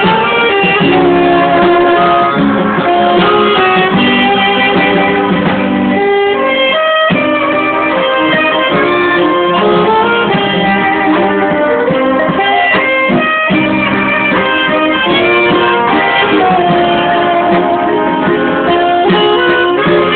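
Band music: a melody line carried over a plucked-string accompaniment and bass, playing without a break.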